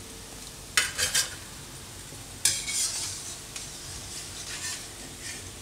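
Sabudana vadas deep-frying in hot oil in an iron kadai, sizzling steadily, while a metal utensil scrapes against the pan twice, about a second in and again around two and a half seconds in, as the golden-brown vadas are lifted out.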